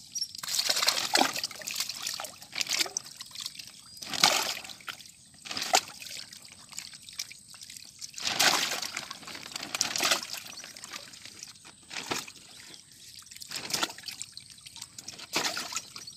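Water sloshing, splashing and trickling as live fish fry are scooped by hand out of a wet net of fish. Irregular splashes come every second or two.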